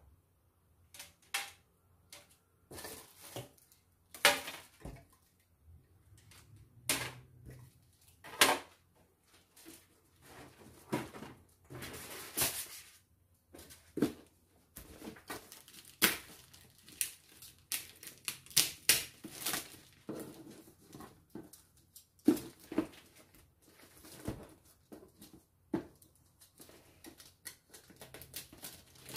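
Irregular knocks and clatter of folding laptop-table parts being handled and set down on a table, with spells of rustling. Plastic mailer bag rustles near the end as it is being opened.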